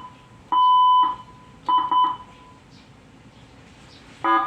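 Electronic beeps from an ambulance siren control module as its buttons are pressed: a short beep, a longer one of about half a second, then a quick double beep, all steady and high-pitched at the same pitch. Near the end comes a brief buzzy double blast with a lower, richer tone.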